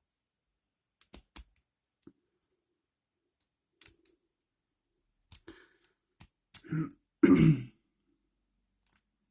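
Scattered small metallic clicks and ticks of a lock pick working the pins of an ASSA Ruko 2 padlock under tension. A little after two-thirds of the way through comes a short, louder throat clearing.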